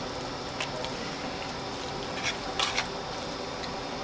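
A utensil mixing fettuccine Alfredo in a large pan: a few soft, wet squishes and light clicks, most of them between two and three seconds in, over a steady low hiss.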